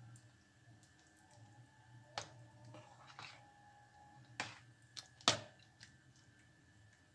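Metal spoon stirring a thick yogurt mixture in a bowl: soft wet squelching, broken by a few sharp clicks of the spoon against the bowl, the loudest about five seconds in.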